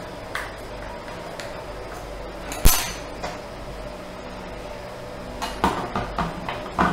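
One sharp knock about two and a half seconds in, then a quick run of lighter clicks and knocks near the end: a perspex sheet and a pencil being handled and set down on a laminated MDF board.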